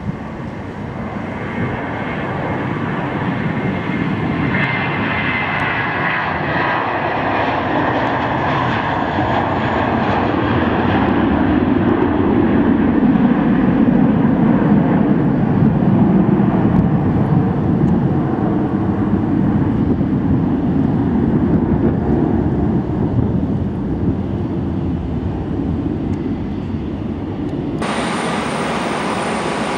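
An airliner's engines running as it passes, the noise swelling to a peak midway and then easing off. Near the end the sound changes abruptly to a different engine noise with a thin, high, steady whine.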